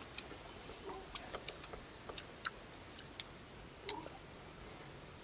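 Close-up eating sounds of a roasted chicken being bitten and chewed: irregular short wet smacks and clicks of lips and teeth on the meat, the loudest about four seconds in. A steady high insect drone runs behind.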